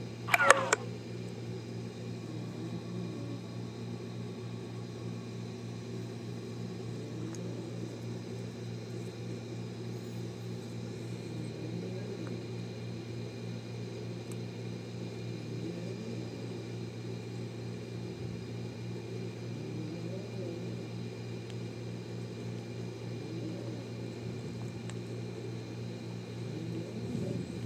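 Steady low background hum throughout. Right at the start there is a brief, loud squeak that falls sharply in pitch.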